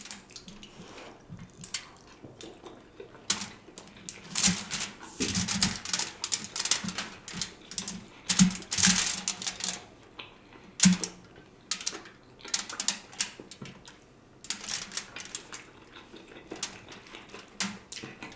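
A person eating a smoked turkey leg: biting, tearing and chewing the meat, with a run of wet clicks, smacks and crackles in uneven clusters.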